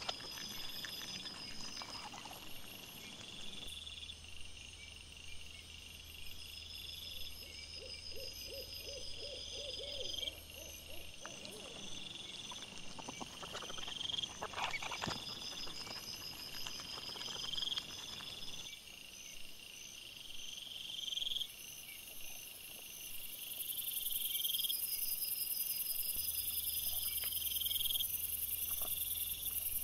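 Night insects chirping in regularly repeating pulses, with brief faint crackles of movement in the leaf litter near the middle; a steady high hiss of the camera's microphone comes in after about 23 seconds.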